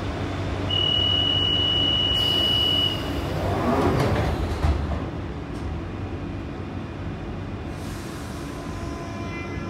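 London Underground 1992 Tube Stock train at a platform. A steady high door-closing warning tone sounds for about two seconds, the doors slide shut with a knock about four and a half seconds in, and air hisses. Near the end a rising whine begins as the train starts to pull away.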